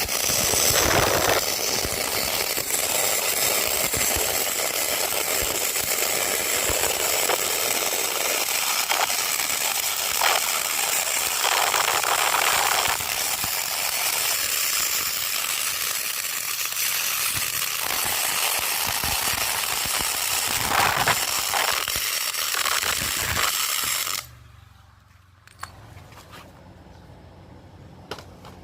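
500 A pulse MIG welder arc-welding aluminium: a steady hissing crackle full of small pops, which cuts off suddenly near the end.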